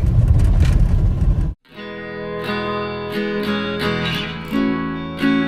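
Low road rumble inside a moving car for about a second and a half, then a sudden cut to acoustic guitar music, strummed and plucked.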